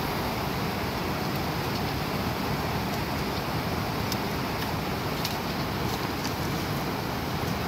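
Glacial meltwater stream rushing over rocks close by, a steady loud wash of water, with a few light clicks scattered through it.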